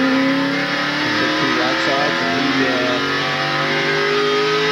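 NASCAR Winston Cup stock car's V8 engine accelerating hard, its pitch rising steadily as it pulls away from pit road back up to racing speed.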